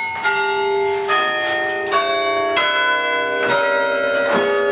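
Church tower bells rung by hand from ropes, one after another at a different pitch each time, about six strokes with each bell ringing on under the next.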